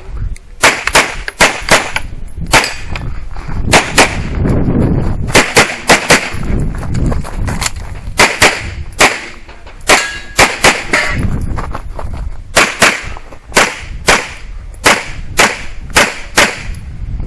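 Handgun shots fired fast through an IPSC stage: about thirty sharp reports, many in quick pairs, in strings broken by short pauses.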